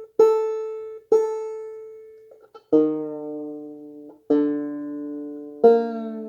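Open-back banjo strings plucked one at a time and left to ring, five notes in all, as the banjo is retuned after its head was tightened. The first two notes are the same pitch; the later ones shift lower.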